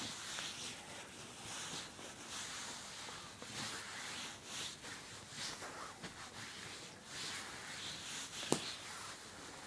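Bedsheet rustling and swishing again and again as a cat paws and pounces at it, with one sharp click near the end.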